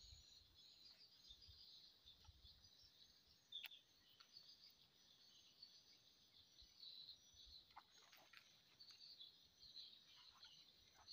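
Near silence: faint outdoor ambience with steady high-pitched chirping, broken by a few faint clicks.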